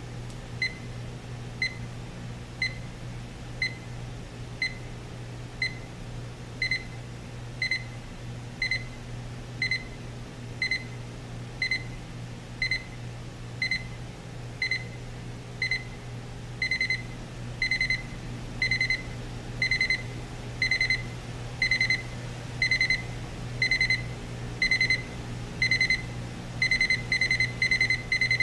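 Westclox 72020 LCD alarm clock's alarm beeping: a high electronic beep about once a second. The beeps get longer and louder about halfway through and turn into quick runs of beeps near the end.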